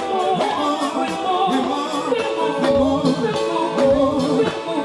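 Live gospel music: a band with a steady, regular beat, and a singer holding a wavering melody between lyric lines.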